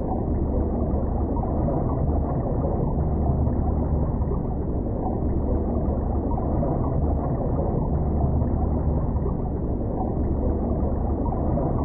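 Steady, muffled low rumble of underwater ambience, with no high sounds in it.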